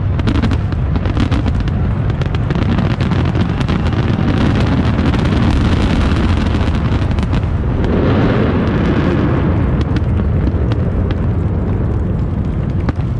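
Dense fireworks barrage: aerial shells bursting in quick succession, their booms merging into a continuous rumble with sharp cracks throughout. It swells to its fullest about eight seconds in.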